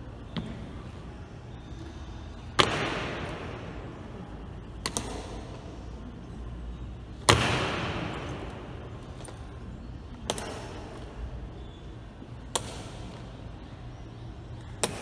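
Honor guards' boots striking the stone floor in a slow ceremonial march, sharp echoing stamps in a large hard hall. Two loud stamps a few seconds apart ring on in a long echo, with lighter heel clicks between them, over a steady low hum.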